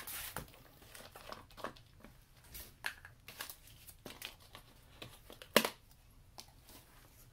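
Paper crinkling and handling noises as a spin-on oil filter and an oil bottle are picked up and set down on newspaper, with scattered small clicks and knocks. A sharper knock about five and a half seconds in is the loudest.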